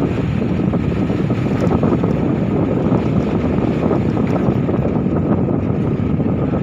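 Steady wind buffeting the phone's microphone as it is carried along on a moving open vehicle, a loud, even rush with no breaks.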